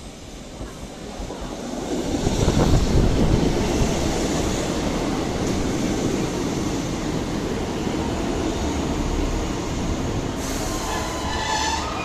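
A GWR Class 150 diesel multiple unit pulling into the platform. Its rumble grows over the first two or three seconds as it draws alongside, then holds steady as the carriages roll past. Near the end a high squeal of several steady tones sets in.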